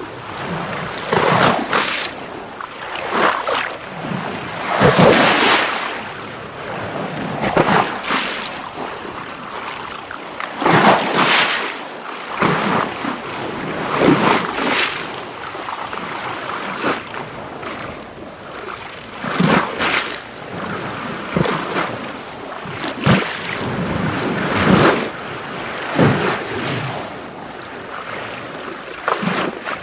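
Water splashing and lapping in irregular surges, a louder slosh every second or two over a steady wash.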